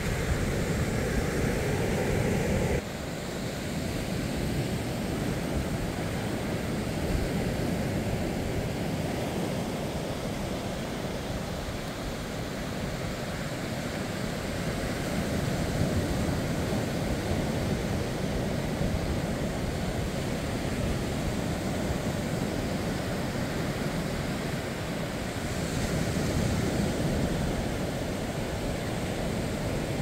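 Small waves breaking and washing up a sandy beach: a steady rushing wash that rises and falls slowly in loudness, with a low rumble of wind on the microphone. The sound changes abruptly about three seconds in.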